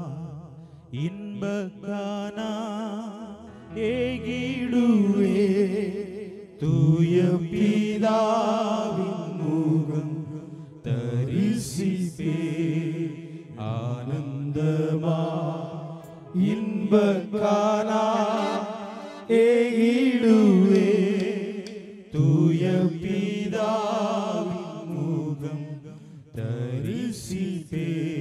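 Tamil Christian worship song, a slow melody sung in long phrases with short breaks over a steady held accompaniment.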